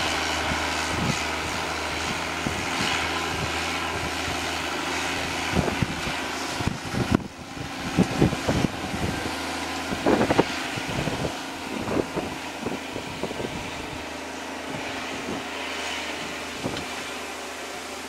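Large tractor's diesel engine pulling a mounted reversible plough under steady load: a constant drone. From about halfway on, gusts of wind buffet the microphone now and then.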